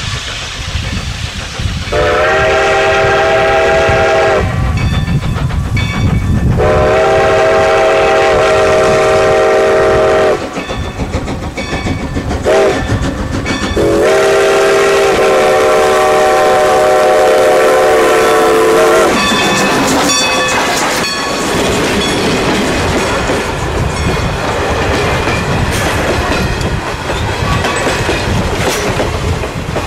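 Strasburg Rail Road Engine 90, a steam locomotive, sounding three long blasts on its steam whistle, the third the longest. From about two-thirds of the way in, the locomotive and its passenger cars pass close by with the wheels clattering over the rail joints.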